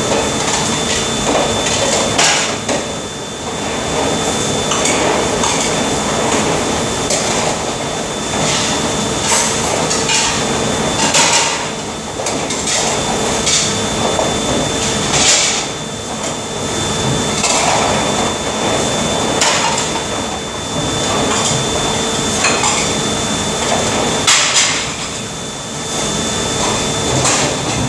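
Dishes and utensils clattering and clanking against a stainless steel sink and counter as they are washed by hand in soapy water, with irregular knocks over a steady hum.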